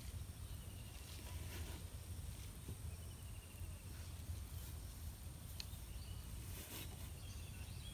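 Rural pond-side ambience: short, rapid chirping trills recur every couple of seconds over a low steady rumble, with a few faint clicks.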